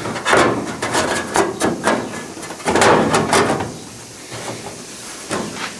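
Thin sheet-metal patch panel being pushed and shifted against a steel wheel well, rattling and scraping in irregular clanks and knocks. It goes quieter about four seconds in.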